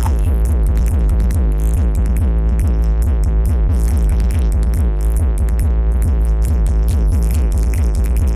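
Electronic dance music blasting from a large sound-system rig, with a heavy, steady bass beat and synth lines sliding up and down in pitch.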